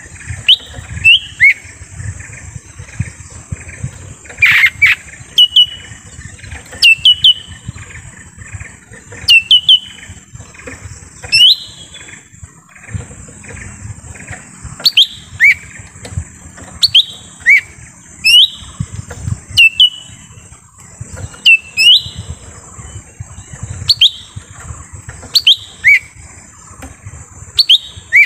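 Lesser green leafbird (cucak ijo mini) calling: short, sharp whistled notes with quick pitch sweeps, often in pairs, repeated every second or two, the kind of call used as a lure to draw in wild leafbirds. A steady high hiss and an uneven low rumble run underneath, with one louder, harsher note about four and a half seconds in.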